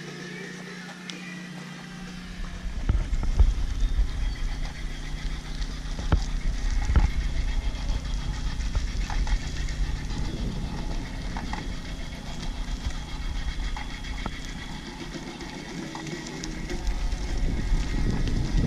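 Cargo bicycle riding on a gravel road: wind buffeting the microphone and tyres rumbling, with occasional knocks and rattles over bumps. The rumble comes in about three seconds in and swells again near the end.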